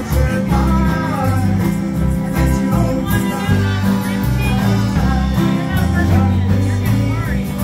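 Live band music: two women singing together into microphones over strummed acoustic guitar.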